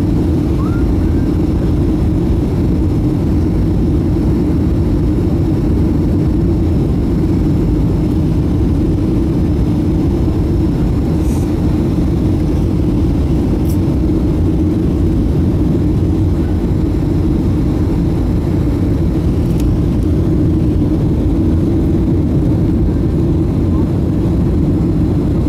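Steady cabin noise of a Boeing 757-200 descending on final approach with flaps extended: a constant low rumble of engines and airflow, with a few faint clicks.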